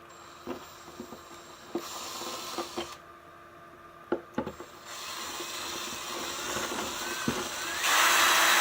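Drill with a small bit run slowly into threaded bolt holes, boring out cured Gorilla Glue foam, with scraping and scattered clicks. The motor whine wavers in pitch, and it gets louder near the end.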